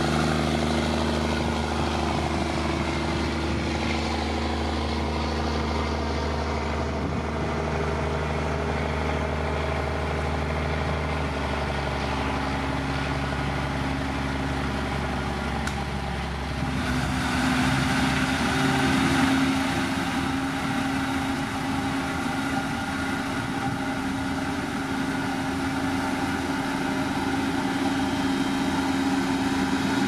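Diesel engine of heavy road-building machinery running steadily. Its note shifts about 11 seconds in, then rises to a higher, louder pitch about 17 seconds in, as the engine speeds up.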